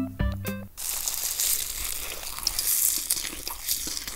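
A short phrase of plucked-note music stops under a second in, followed by a dense, continuous crinkling and crackling noise.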